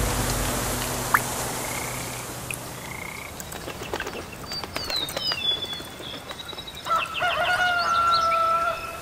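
Nature ambience sound effect of croaking frogs and chirping birds, scattered calls that thicken near the end, with the theme music fading out over the first few seconds.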